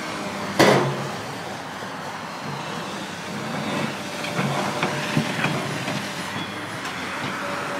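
Demolition work by a Case hydraulic excavator: its engine drones steadily, a loud crash comes about half a second in, and a scatter of smaller knocks and clanks follows around the middle.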